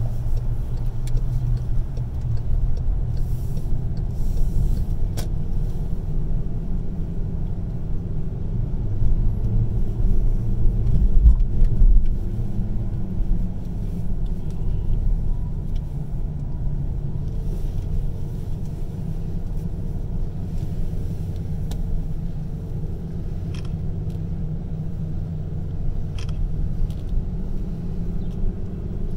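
Low, steady rumble of a car's engine and tyres heard from inside the cabin while driving on city streets, swelling briefly about ten seconds in, with a few faint clicks.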